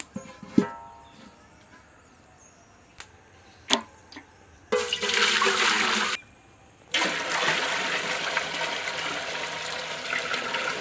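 Water poured in a stream into an empty aluminium cooking pot, twice: a short pour, then a longer one. A couple of ringing metal clanks in the first second as the pot is set down on the hearth stones.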